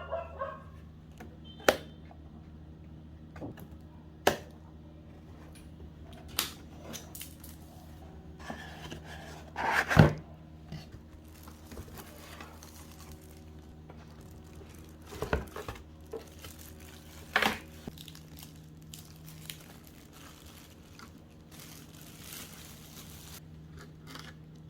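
Unboxing a computer speaker: the packaging is handled, with scattered knocks and clicks and a few short tearing, crinkling rustles, the loudest about ten seconds in, over a faint steady low hum.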